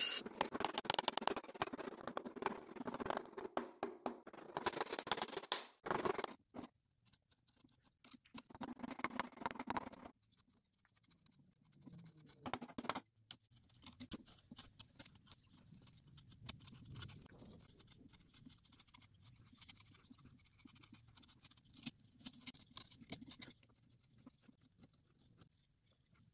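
Steel carving chisel paring walnut by hand: irregular crisp cuts and scraping strokes, louder and busier in the first ten seconds, then lighter and fainter.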